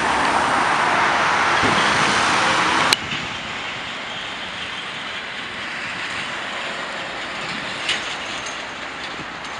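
Road traffic: a car going by close with a loud rush of tyre and engine noise, then an abrupt cut about three seconds in to quieter, steadier street traffic.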